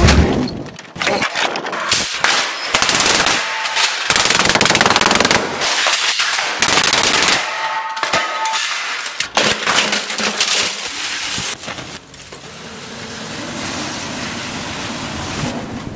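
A printer's plastic casing being smashed to pieces: a rapid, irregular series of hard impacts and cracking plastic. From about twelve seconds in this gives way to the steady rushing of a fire burning the printer's remains.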